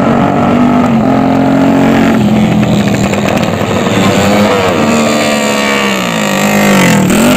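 Small motorcycle engines revving hard. The pitch holds, then drops in steps, and near the end dips and rises sharply several times.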